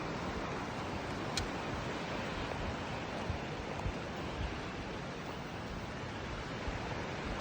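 Steady rushing outdoor noise with a few soft low thumps and a faint tick about a second and a half in.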